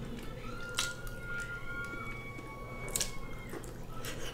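Wet, squishy eating sounds as seafood meat is dipped in melted butter and eaten. Two sharp clicks stand out, about two seconds apart.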